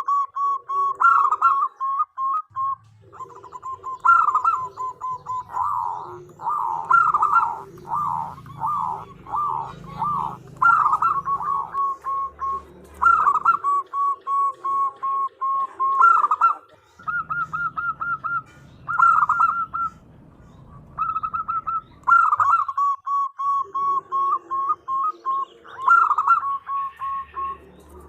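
A zebra dove (perkutut) calling: runs of short clipped whistled notes interspersed with quick warbling phrases, with brief pauses between bouts.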